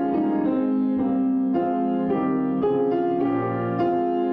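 Keyboard playing the slow introduction to a hymn in sustained chords, a new chord about every half second.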